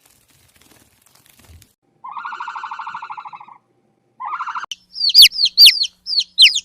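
Bird calling: a trilled call of about a second and a half, then a shorter one, followed by a fast run of loud, high whistled notes, each sliding down in pitch, about two to three a second.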